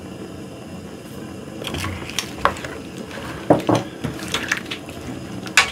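Wooden spoon stirring rice cakes and spicy sauce in a metal wok. Irregular scraping and wet squishing strokes, with one sharp click near the end.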